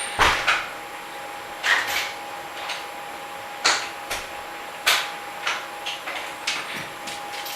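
A house door shutting with a single solid thud, followed by scattered lighter clicks and knocks over a faint steady hum.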